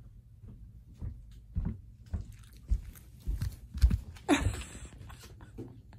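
Shiba Inu moving about on a padded dog bed right up against the microphone: a run of soft thumps and fabric rustles from its paws and body, the heaviest about four seconds in, followed by a short breathy noise.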